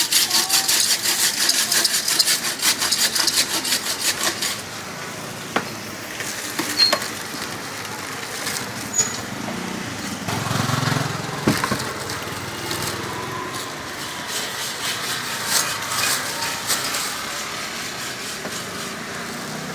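Fast, rhythmic scraping strokes for about the first four seconds, then street traffic noise with a few sharp clinks and a low passing rumble around the middle.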